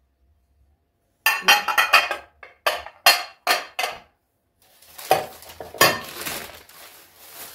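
Small serving plates knocking and clinking against each other as they are handled and stacked, a quick run of sharp clacks after about a second of silence. Near the end comes a rustling, like plastic shopping bags being searched, with a couple of knocks.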